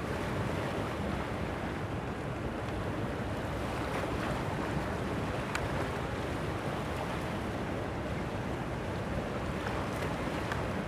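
Sea surf washing steadily against a rocky shore in rough weather, with strong wind buffeting the microphone.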